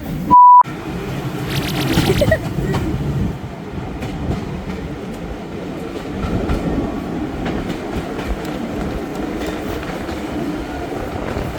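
A train running on the rails, a steady rumble with faint repeated wheel clicks that grows louder for a moment a couple of seconds in. About half a second in, a short, loud edited-in beep tone cuts in with silence around it.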